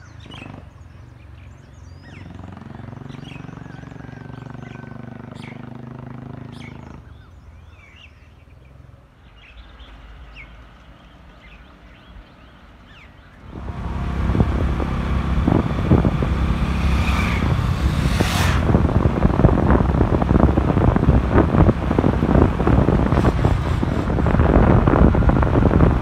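Birds chirping, then from about 13 s on a loud, steady rush of wind buffeting the microphone as a Honda Dio scooter is ridden along a road, with the engine running under the wind noise.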